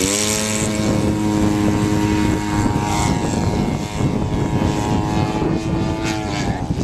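Propeller motor of a radio-controlled model Cessna climbing out after takeoff: the pitch rises as it is throttled up at the start, holds a steady drone while the plane climbs, then drops near the end as the throttle is eased back.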